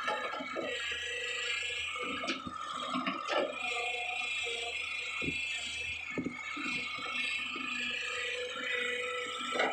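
Kobelco SK120 hydraulic excavator at work: the engine and hydraulics run with a steady whine, broken by scattered knocks and rattles.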